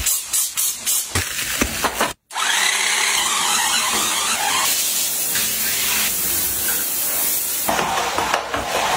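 An electric spin scrubber runs steadily, its rotating brush head scrubbing a wet, foamy tile floor. It is preceded by a run of short rubbing strokes and a brief cut, and near the end gives way to a squeegee wiping water across the floor.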